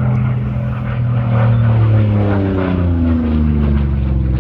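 Yakovlev Yak-3U's 14-cylinder Pratt & Whitney R-2000 radial engine and propeller, loud as the aircraft flies past, the engine's pitch dropping as it goes by around two to three seconds in.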